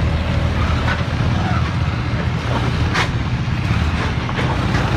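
A motor vehicle engine running with a steady low drone, with a few sharp clicks about one, three and four and a half seconds in.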